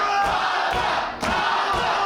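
Live wrestling crowd shouting and cheering, many voices at once, with a brief lull a little after a second in.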